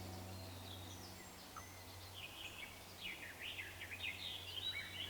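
Woodland songbirds singing: short high chirps and quick trills, few at first and busier from about halfway through, over a low steady hum.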